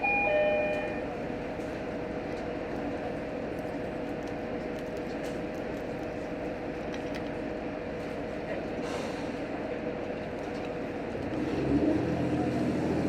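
Cabin sound of a JR Hokkaido H100 diesel-electric railcar. An electronic chime ends in the first second, followed by a steady running hum. About eleven seconds in, the engine note rises and grows louder as the diesel comes up to power.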